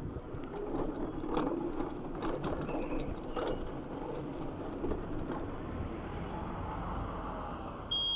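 Mobility scooter on the move: its motor and wheels rumbling over the road surface, with several short knocks from bumps. Near the end a high electronic beep starts.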